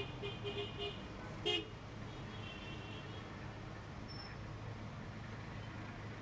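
Street traffic with a steady low hum, and several short car-horn toots in quick succession in the first second. A louder single toot comes about a second and a half in.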